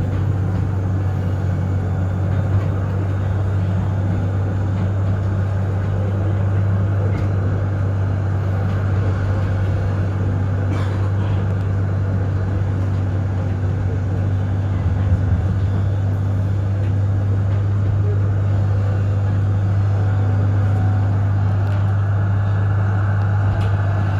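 Z class tram running: a steady low hum over even rolling noise, with a brief knock about eleven seconds in.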